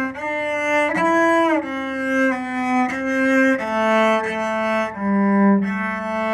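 Cello playing a slow passage of held, bowed notes one after another, with a short slide between notes about a second in as the player shifts position.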